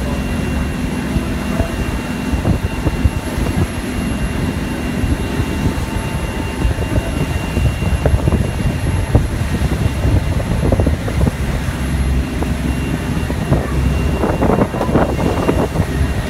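Ferry boat's engine running with a steady low drone and rumble under way.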